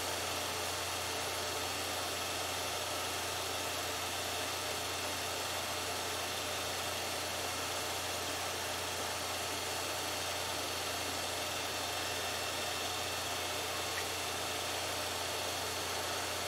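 Home-movie film projector running: a steady low hum with an even hiss.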